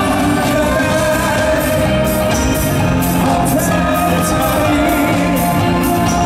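Live music: a male vocalist singing into a handheld microphone over a full band with drums, amplified through an arena PA.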